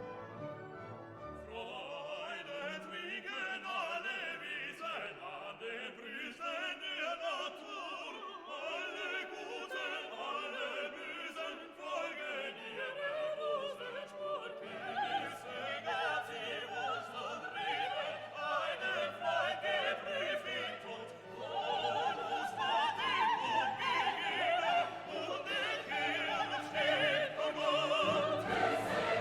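Background music: operatic singing with an orchestra, swelling louder about halfway through and again later on.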